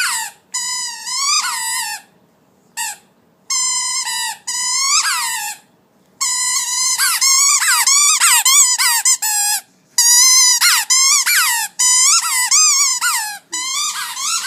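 Squeaky toy squeezed over and over, making long high squeals that bend in pitch, in runs of several squeaks with short pauses between them.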